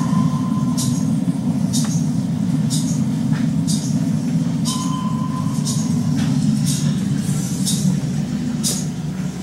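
Steady low machinery rumble inside a ship's compartment, with a short sharp hiss repeating about once a second. A steady high beep sounds at the start and again about five seconds in.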